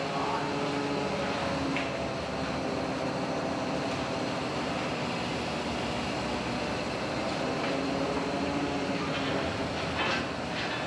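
Steady drone of a longliner's engine and deck machinery as the line is hauled aboard, with a few clanks near the end.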